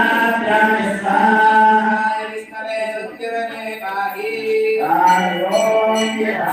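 Devotional singing or chanting by male voices over a steady drone, as at an Ayyappa abhishekam.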